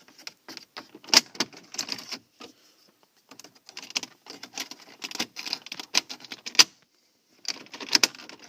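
A small plastic interior trim piece on a Volvo V70's centre console being worked loose from its clips: a run of sharp clicks, scrapes and rattles in three clusters, with short pauses between.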